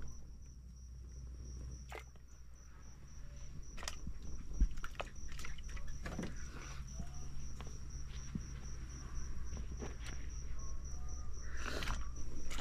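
An insect calling steadily: a high, evenly pulsed trill, with scattered light clicks and knocks over it.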